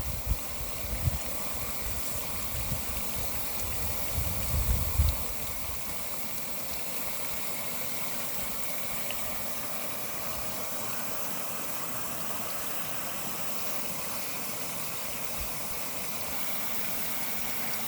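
Water under pressure spraying and gushing steadily out of a cracked threaded fitting on a white plastic water pipe, just ahead of its shut-off valve, so closing the valve does not stop the leak. Wind buffets the microphone with low rumbles during the first five seconds.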